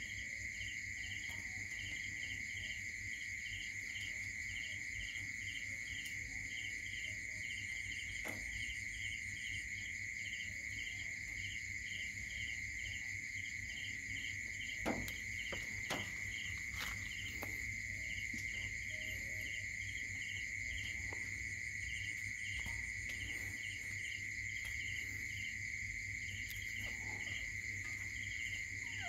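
Night insect chorus: crickets trilling steadily, with a pulsed chirp repeating about twice a second over the top. A few faint clicks come about halfway through.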